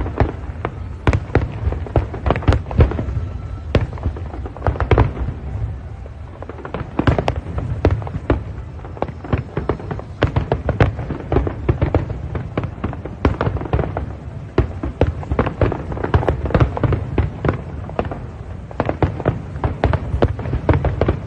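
Aerial fireworks display: many shells bursting in quick succession, sharp bangs over a continuous low rumble, in clusters that thin briefly and build up again.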